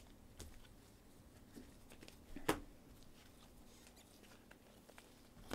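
Faint scraping and ticking of chromium trading cards slid across one another in gloved hands as a stack is flipped through, with one sharper tick about two and a half seconds in.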